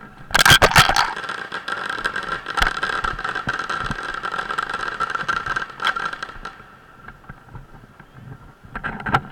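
Motorcycle riding along with a steady high whine and rushing noise, which drop away about six and a half seconds in; a loud burst of noise comes about half a second in.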